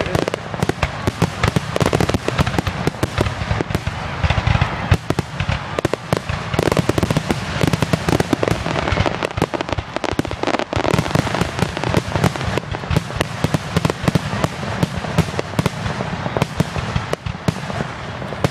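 Fireworks going off in a dense, continuous barrage: many sharp bangs and crackles in quick succession over a steady rumble of booms.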